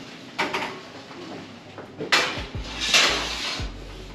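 Kitchen handling noises as a tray of sweets goes into the oven: a few knocks and metal clatters, with a longer sliding scrape about three seconds in.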